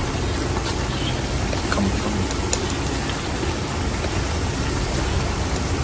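Sliced onions frying in a large aluminium pot of hot oil: a steady sizzle with faint crackles.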